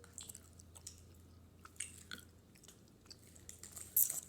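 Someone chewing gummy candies with soft wet mouth sounds and small clicks, with a brief louder burst of noise about four seconds in.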